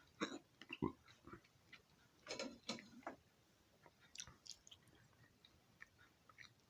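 Faint scattered clicks and soft rustles of food and kitchen utensils being handled.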